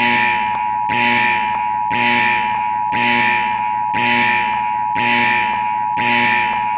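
Electronic danger alarm sounding: a blaring pulse that repeats about once a second over a continuous steady high tone.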